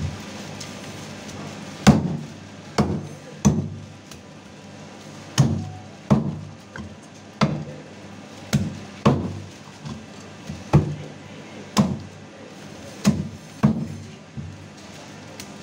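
Mallet blows on the back of a cleaver, driving the blade through a giant grouper's backbone into a thick wooden chopping block to cut steaks. About a dozen heavy knocks, irregularly spaced in twos and threes with short pauses between.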